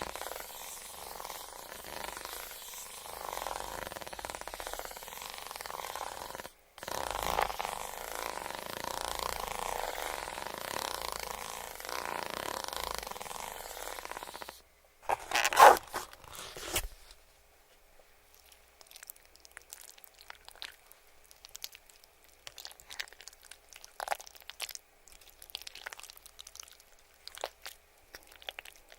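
Close-miked eating of KFC fried food: scattered small crunches and crackles of chewing in the second half. It follows a steady rustling hiss through the first half and a loud, brief sound about halfway through.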